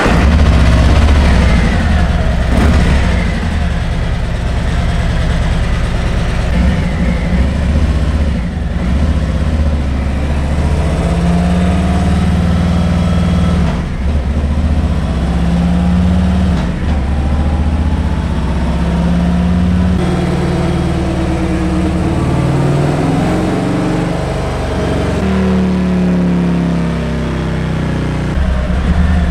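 Harley-Davidson Road Glide's Milwaukee-Eight V-twin running loud on a chassis dynamometer during baseline power runs, its pitch rising in several revving pulls and settling back between them.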